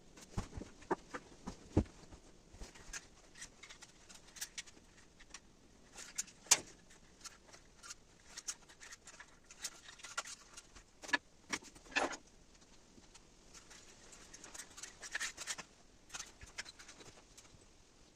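Irregular small clicks, taps and light knocks, with brief rustling, that come and go unevenly; the sharpest knock is about six and a half seconds in.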